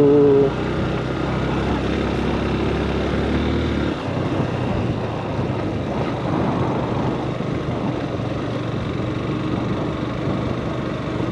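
Motorcycle engine running at riding speed on a dirt road. About four seconds in, its steady low note drops away and a rougher, noisier sound carries on.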